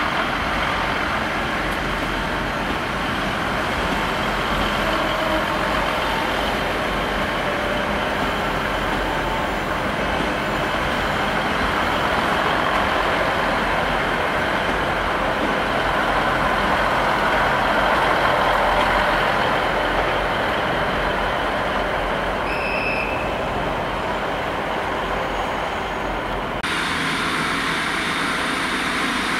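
GWR diesel multiple unit running past, a steady rumble of engine and wheels on the rails that swells and eases off, with a short high beep about 23 seconds in. Near the end the sound cuts to a Class 150 diesel unit coming in along the platform.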